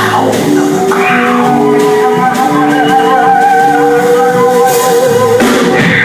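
Music: a song with instruments playing, including one long held, wavering note that breaks off about five seconds in.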